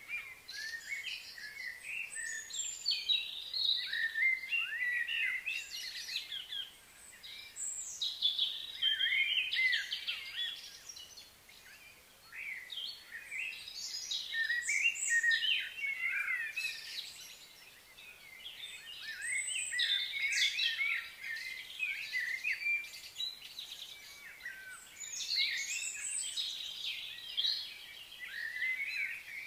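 Birds chirping and singing, many quick high chirps and trills coming in bouts of a few seconds with short lulls between.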